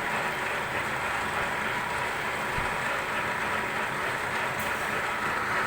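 Heavy-duty lathe running with a steady mechanical noise and a few faint constant tones.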